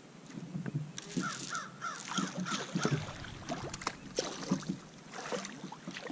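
Hooked spotted bass splashing and thrashing at the surface beside a kayak as it is reeled in, with short irregular splashes and knocks. A bird caws repeatedly over it in the first few seconds.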